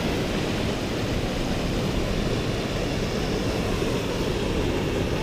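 Waterfall rushing close by: a steady, unbroken roar of falling water, heaviest in the low end.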